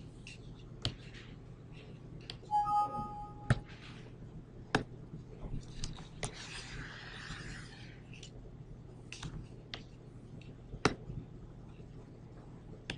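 Faint, scattered computer mouse clicks, about a dozen, over a low steady room hum, with a short tone about two and a half seconds in and a brief rustle about six seconds in.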